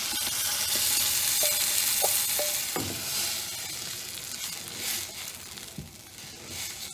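Hot oil sizzling loudly as a thin ground-coconut and tamarind curry liquid is poured into sautéed shallots and garlic in a clay pot; the sizzle fades over the last few seconds. A few light clinks of the wooden spoon on the steel bowl come in the first half, followed by stirring.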